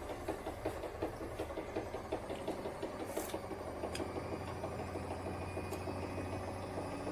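Zanussi IZ 16 S washing machine running hard with a fast, even knocking rattle over a low hum, and the hum grows stronger about four seconds in. The owner puts one of the noises down to the drum's shock absorbers; the bearings sound okay.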